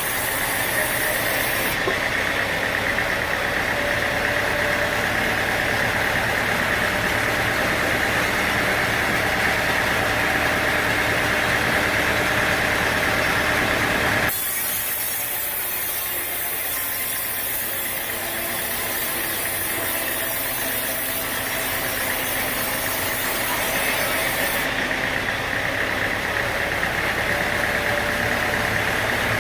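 Sawmill machinery running steadily, a continuous engine-driven drone with a strong mid-high hum. About halfway through the sound changes abruptly, losing much of its low rumble, and fills back in near the end.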